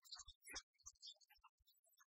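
Near silence, with faint, broken-up fragments of a man's talking voice and scattered clicks.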